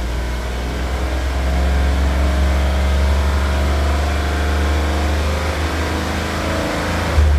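2015 Cadillac Escalade's 6.2L V8 held at a steady fast idle of about 2000 rpm. The engine has a P0300 random-misfire code and the scan tool still shows it running rich.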